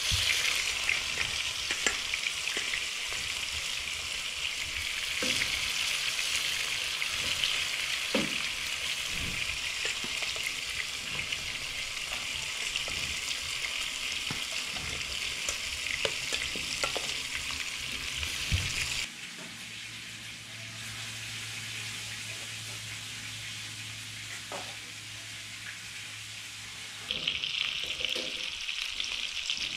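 Rabbitfish and mantis shrimp frying in hot oil in a frying pan, a steady sizzle with small clicks of metal tongs against the pan. The sizzle quietens for several seconds past the middle under a low steady hum, then comes back near the end.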